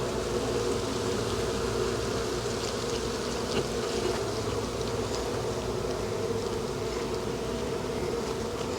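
Swarm of honeybees buzzing, a steady, unbroken hum, with a few faint light clicks.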